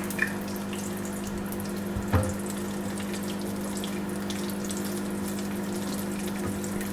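Cashew nuts sizzling and crackling in hot ghee, over a steady hum. Two short knocks, just after the start and about two seconds in, sound like the stirring spoon against the pan.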